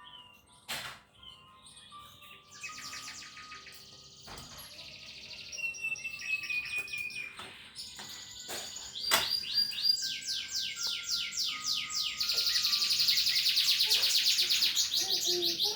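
Birds singing: fast, even trills of short high notes that slide downward, joined by more birds and growing louder in the second half. A few sharp clicks sound in between.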